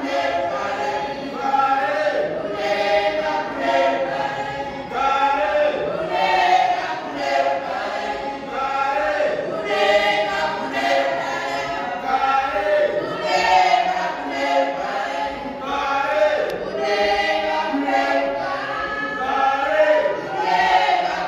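Youth choir of men's and women's voices singing a cappella in harmony, one continuous phrase-by-phrase song.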